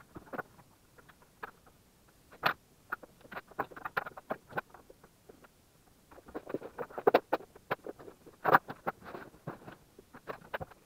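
Sped-up handling noise of cables and plugs being pulled out from under a desk: quick, irregular clicks, taps and rustles, busiest in two stretches with the sharpest clicks around the middle.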